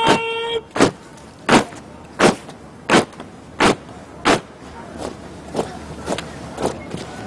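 An honour guard's goose-step footfalls stamping in unison, a sharp stamp roughly every 0.7 seconds, loud for the first four seconds or so and then softer. It opens on the tail of a held brass note that cuts off about half a second in.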